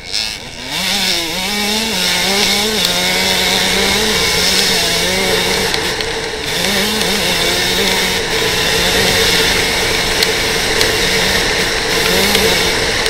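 KTM 125 two-stroke dirt bike engine ridden hard, revving up and dropping back through the gears, with the pitch climbing and falling at each shift and throttle change.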